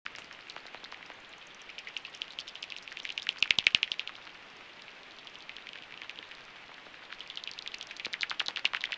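Pipistrelle bat echolocation calls heard through a heterodyning bat detector tuned to 44 kHz: rapid trains of clicks over a steady hiss. The clicks swell into a fast, loud train as a bat passes close, about three and a half seconds in, and build again near the end.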